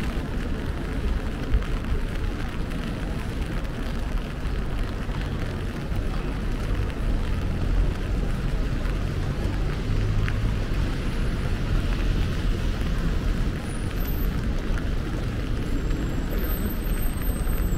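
Steady city street ambience: a continuous low traffic rumble with an even background hiss.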